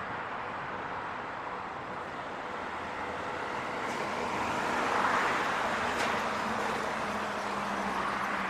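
Road traffic going by steadily, with one vehicle passing that swells to its loudest about halfway through; a low steady hum joins in the second half.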